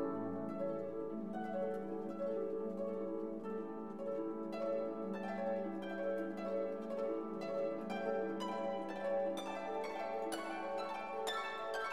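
Instrumental background music: a run of plucked, harp-like notes over held lower tones, getting busier about four seconds in.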